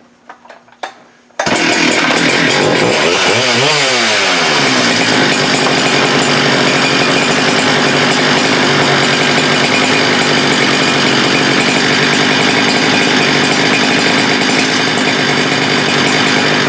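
Holzfforma G395 two-stroke chainsaw comes in suddenly and loud about a second and a half in. Its pitch rises and falls briefly, then it runs steadily at high revs. It has a freshly replaced piston and the low-speed mixture screw at one and an eighth turns out, and it shows only a light piston slap, which the owner judges a totally acceptable amount.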